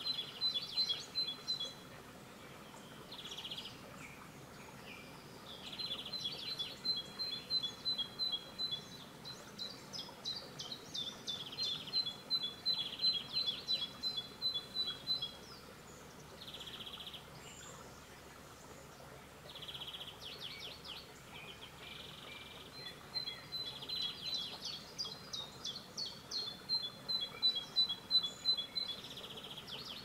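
Songbirds singing over the faint steady murmur of a small forest stream. One bird repeats a high phrase of two alternating notes for a few seconds at a time, several times, with short runs of rapid notes in between.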